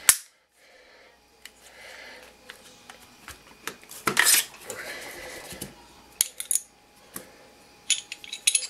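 Walther PPS 9mm pistol being field-stripped by hand: a run of sharp metallic clicks and clacks from the slide and parts. The loudest come right at the start and about four seconds in, with a quick cluster near the end.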